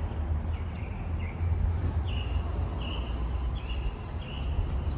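A small bird chirping, a short high note repeated about every second and a half beat, over a steady low outdoor rumble.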